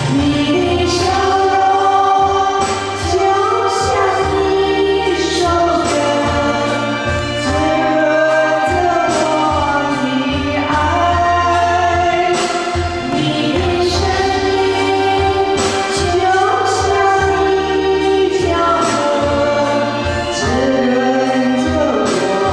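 A woman singing a Mandarin pop ballad into a karaoke microphone over a recorded backing track with a steady bass beat.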